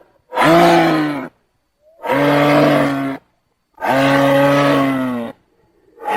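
Giraffe giving low, moo-like bellows: three calls of about a second each with short silent gaps between them, and a fourth starting near the end.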